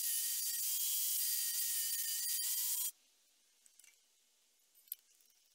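Angle grinder with a cutting disc cutting into steel plate: a steady high whine over a hiss, which stops abruptly about three seconds in. A few faint clicks follow.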